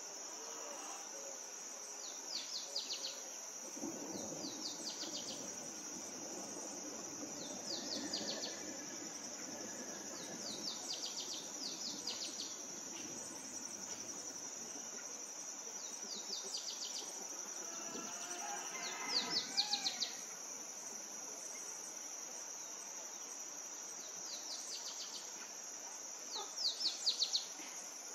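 Insects droning steadily at a high pitch, with short rapid chirp series that recur every few seconds and are loudest near the end. About two-thirds through, a bird gives a brief burst of whistled, gliding notes.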